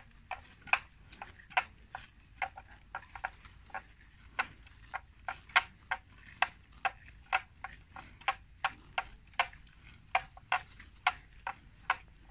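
Buffalo grazing: an uneven run of sharp, crisp crunches, about two or three a second, as it tears off and chews plants.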